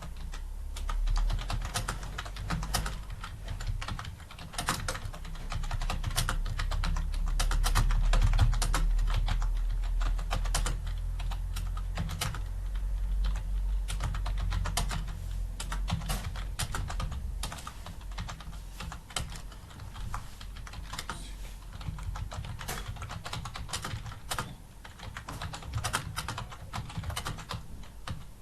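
Computer keyboard being typed on continuously, a dense, unbroken stream of key clicks during a timed typing test. A low rumble runs underneath, loudest in the first half.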